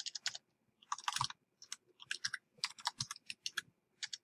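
Typing on a computer keyboard: irregular bursts of rapid key clicks with short pauses between them.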